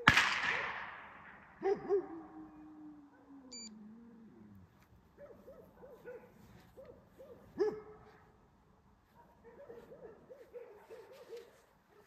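A single gunshot cracks once and echoes away over about a second and a half: the shot fired to test the dog's reaction to gunfire. It is followed by a drawn-out falling whine and a run of short, soft whimpers from the Schapendoes dog, which was frightened by the shooting.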